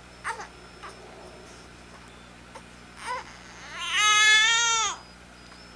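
Young baby fussing: a few short whimpering sounds, then one loud wailing cry about a second long near the end.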